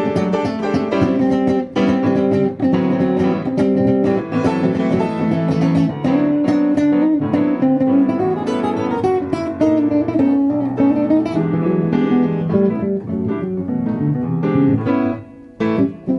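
Guitar playing a blues tune, with busy picked notes and strums; the playing thins out and drops in level about a second before the end.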